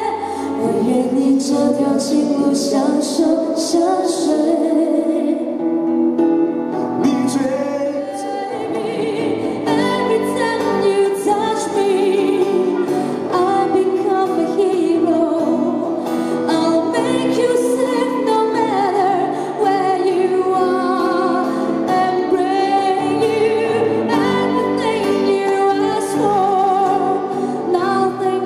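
Woman singing a slow pop ballad into a microphone, accompanied by an acoustic guitar, performed live.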